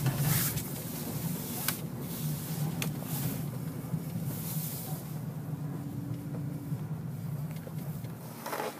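2011 Dodge Charger SE's 3.6-litre V6 running steadily at low revs, heard from inside the cabin while the car is driven slowly through corners. A few short clicks sound about two and three seconds in.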